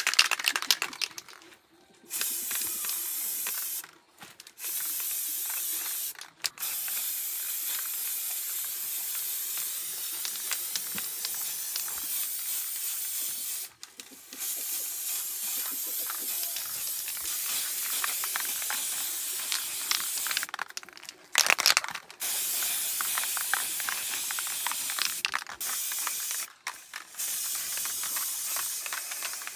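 A steady hissing, scraping noise in long stretches of several seconds, each starting and stopping abruptly with short breaks between them, with a louder burst right at the start.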